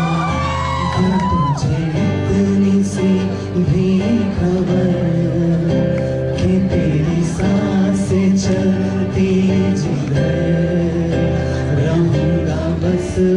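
Live acoustic guitar strummed steadily under a male voice singing a romantic Bollywood song.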